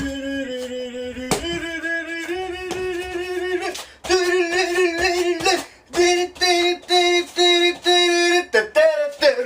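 A voice singing a simple melody: long held notes, then a run of short notes repeated at one pitch about twice a second.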